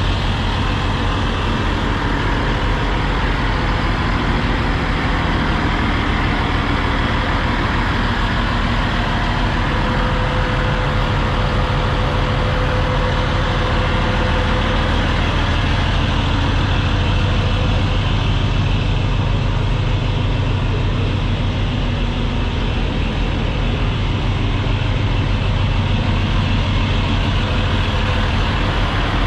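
Diesel engine of a Peterbilt 389 semi truck idling steadily, close by.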